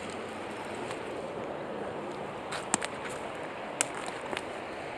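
Creek water rushing steadily over riffles, with a few short sharp clicks about three and four seconds in.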